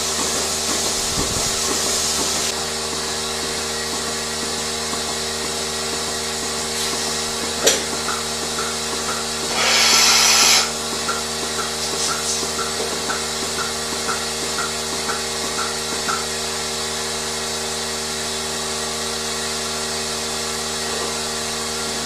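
Steady machinery drone with several held tones. A sharp click comes shortly before a loud burst of hiss lasting about a second, roughly ten seconds in, and faint ticks repeat for several seconds around it.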